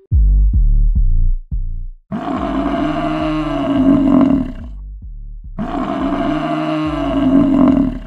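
A short run of low, falling musical hits, then a buffalo calling twice: two long, low bellows about a second apart.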